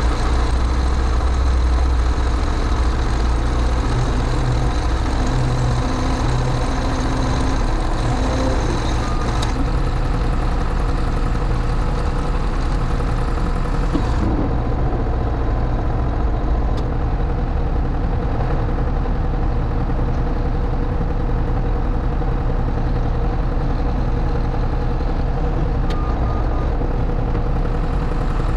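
New Holland backhoe loader's diesel engine idling steadily, heard from inside its cab.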